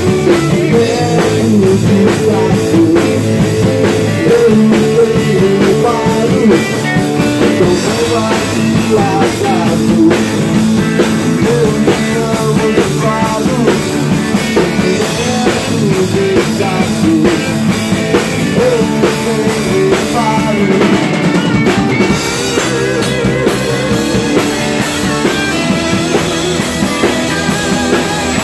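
A rock band playing an instrumental passage in a rehearsal room: drum kit, strummed acoustic-electric guitar, and an amplified electric guitar playing lead lines with bent notes. The band gets a little softer about two-thirds of the way through.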